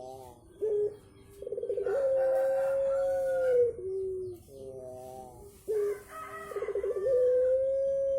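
Puter (domestic ringneck dove) cooing with the drawn-out 'pelung' call, an unusual-sounding voice. Each coo runs through short notes and a quick stuttering burst into a long, steady, high note that drops to a short low note at the end. It sounds twice, about five seconds apart.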